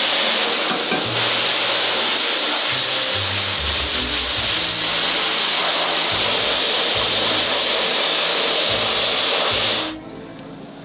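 Steady hiss of an abrasive blasting machine blasting the insides of frying pans, roughening the metal to take the non-stick coating. The hiss cuts off suddenly near the end, and background music with a low bass line plays underneath.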